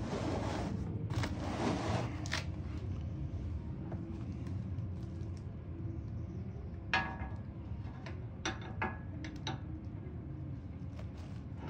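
Plastic wrap crinkling at first, then metal parts and hand tools being handled: one sharp ringing metallic clink about seven seconds in, followed by a few lighter clicks, over a steady low background hum.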